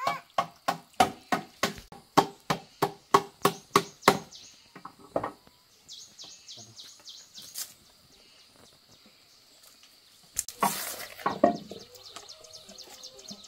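Machete blade chopping on a wooden plank, a rapid run of about three strikes a second for some four seconds, then a single strike. A loud rustling burst follows near the end, with birds chirping.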